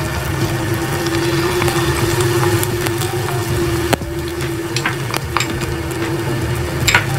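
Battered chicken pieces deep-frying in hot oil in a stainless steel pot: a steady sizzle over a low hum, with a few sharp clicks of a metal spoon against the pot, the clearest about four seconds in and near the end.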